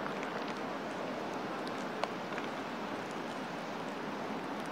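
Steady outdoor background hiss on a baseball practice field, with a single sharp knock about two seconds in from the fielding practice.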